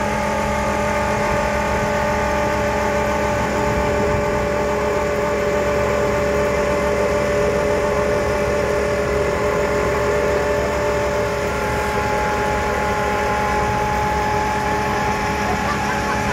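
Hydraulic earth auger boring into sandy soil, with the steady running of the engine and hydraulics driving it, a constant hum with a few held tones.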